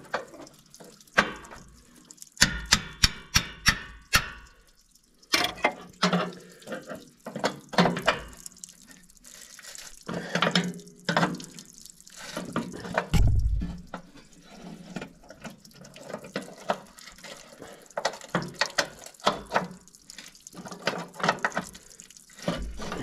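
Metal clicking and clinking of a box-end wrench being worked on the water pump bolts of a Caterpillar 3304 engine in a cramped spot behind the fan shroud. There is a quick run of sharp clicks a few seconds in, scattered clinks after, and a dull thump about halfway.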